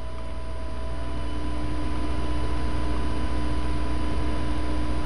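Steady low hum and hiss with a few faint, thin whining tones, slowly growing a little louder; no distinct handling sounds.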